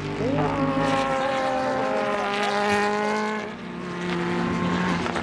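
Super GT race cars' engines at high revs as the cars go through a corner. Several engine notes overlap, dipping and rising in pitch.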